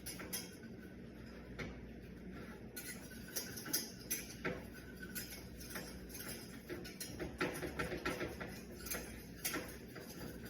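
A cooking utensil stirring and scraping in a pan, giving irregular clicks and taps against the metal.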